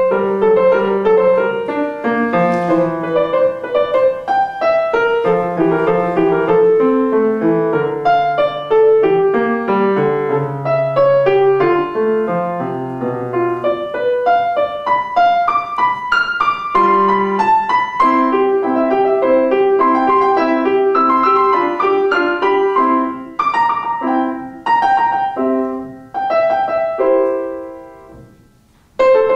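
Grand piano played solo: a steady stream of notes over a moving bass line, turning to short separated chords in the later part. Near the end a chord fades away, there is a brief gap, and the playing starts again.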